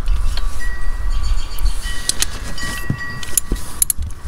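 Ratchet wrench clicking in short runs as it tightens the oil filter cover bolts on an ATV engine, over a steady low rumble.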